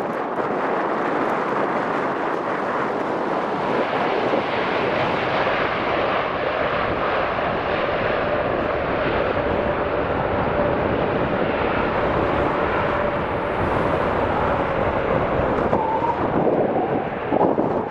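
Boeing 747-8F freighter's four GEnx turbofan engines during landing, a steady loud jet rumble as it touches down and rolls out. A faint thin whine runs through the middle and climbs higher near the end.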